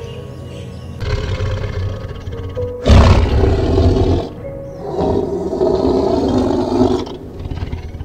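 Two loud, rough animal roars over background music: the first, the loudest, about three seconds in and lasting about a second, the second from about five to seven seconds in.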